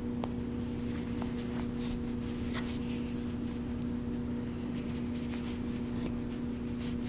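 Faint rustling and light scratches of a plastic yarn needle being pushed in and out of super bulky yarn stitches, over a steady low hum.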